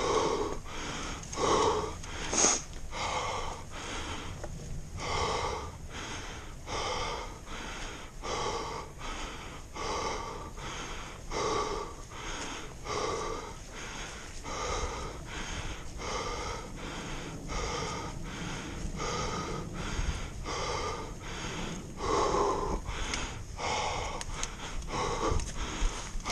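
A person breathing hard and wheezing in a quick, steady rhythm, a little more than one breath a second, from the exertion of climbing uphill.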